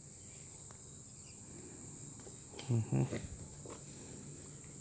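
A faint, steady high-pitched trill like crickets, with a brief soft sound about three seconds in.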